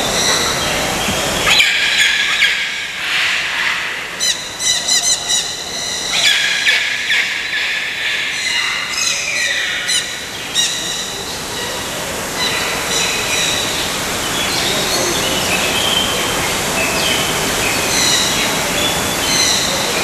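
Tropical birds calling: a rapid run of high chirps, whistles and squawks, thickest from about two to eleven seconds in, with scattered calls after, over a steady hiss.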